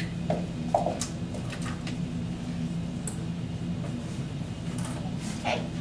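Dry-erase marker scratching in short strokes on a whiteboard as the word "prolactin" is written, over a steady low hum. A few short soft knocks come in the first second.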